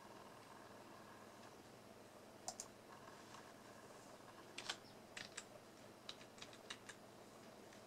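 Quiet room with a few small, sharp button clicks: a pair about two and a half seconds in, another pair a little past the middle, then a quick run of about six.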